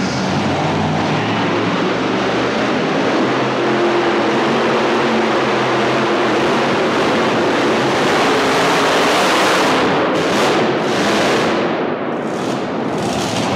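Modified pulling tractor's supercharged engines running at full power under load as it drags the weight-transfer sled. The sound is a loud, steady, dense engine noise that begins to waver near the end.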